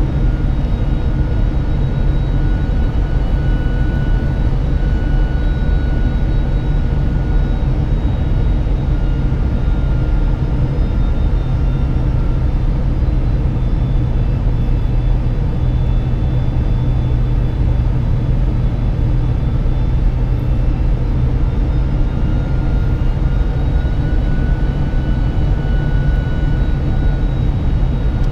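Boeing 747-400 cabin noise on approach: a steady rumble of engines and airflow with a faint high whine that wavers slightly in pitch.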